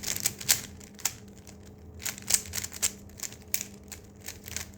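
Rubik's cube being scrambled by hand: the plastic layers turning with quick, irregular clicks.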